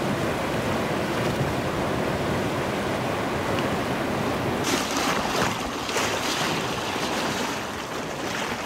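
Rushing whitewater of a river rapid, a steady churning hiss. Just past halfway the sound turns brighter and hissier, as if heard closer to the rapid.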